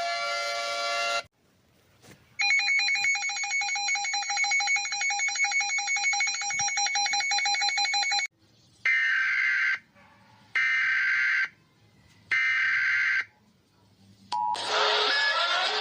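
EAS-style emergency alarm tones: after a short gap, a rapidly pulsing electronic alert tone sounds for about six seconds. Three short bursts of digital data tones follow, each about a second long and a second apart. Near the end a different alert sound with gliding pitches begins.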